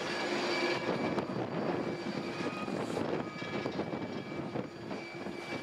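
Airbus A330-200's General Electric CF6-80E1 turbofan engines running steadily at low power as the airliner lines up on the runway for takeoff: an even rush of jet noise with a faint high tone over it.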